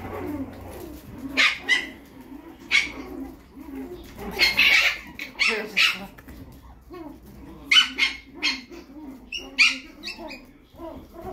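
Chihuahua puppies play-fighting, giving repeated short high-pitched yips and squeals with lower whining between them.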